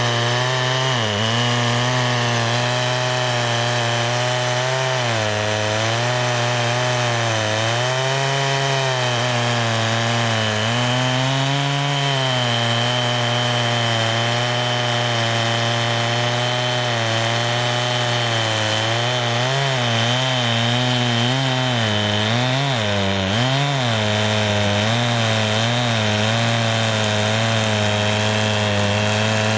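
Two-stroke chainsaw running at high speed while cutting wood, its engine pitch sagging and recovering as the chain works through the cut, with several quick dips a little past two-thirds of the way through.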